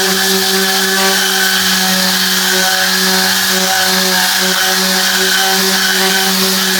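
Tornador air-powered cleaning gun blasting a steady hiss of compressed air, with a steady machine hum beneath it.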